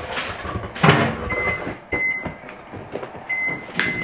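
A clunk about a second in, then four short beeps at one high pitch from a microwave oven's keypad as it is set to reheat food.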